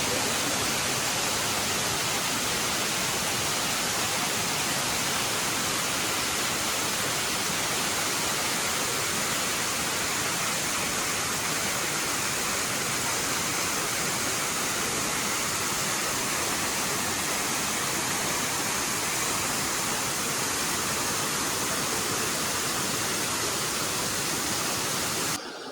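Waterfall in full monsoon flow, water pouring onto rocks as a steady, unbroken rushing noise that cuts off abruptly near the end.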